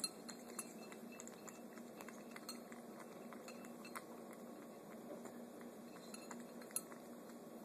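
Two kittens lapping liquid from a small glass bowl, with faint, irregular clinks of a metal collar tag and bell knocking against the glass; a couple of louder clinks stand out, one near the end.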